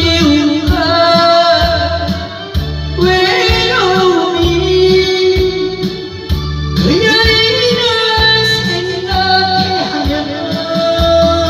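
Karaoke backing track of a trot song with a steady beat, and a woman singing the melody into a microphone over it.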